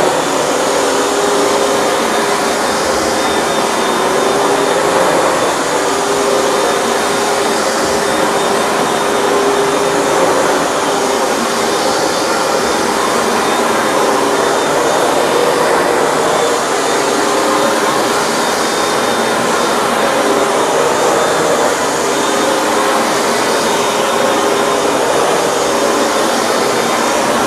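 Hoover Dual Power Max upright carpet cleaner running steadily, its suction motor and brush roll going as it is pushed over a rug, with a steady motor whine over the roar of air.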